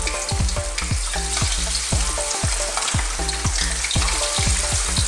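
Batter-coated squid rings deep-frying in hot oil, a steady crackling sizzle.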